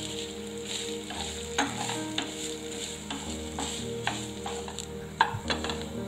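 Wooden spatula stirring grated coconut and small shallots frying in oil in a nonstick pan, sautéing the coconut: a steady sizzle with several sharp scrapes and knocks of the spatula against the pan, the loudest about five seconds in.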